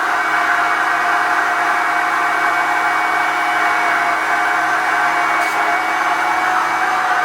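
Hoover Turbopower Junior U1102 upright vacuum cleaner running steadily, with a constant motor whine.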